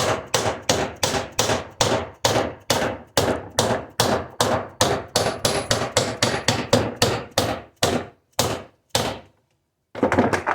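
Dead blow hammer striking a crankshaft seal installer tool in rapid, even blows, about three or four a second, driving the seal down to depth in its housing. The blows slow and stop near the end, then a couple more strikes follow just before the end.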